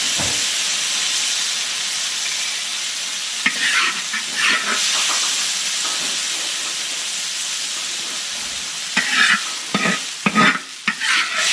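Bean sprouts sizzling steadily as they stir-fry in a pan, with a spatula scraping and clattering against the pan in two spells: briefly about four seconds in, and more strongly near the end.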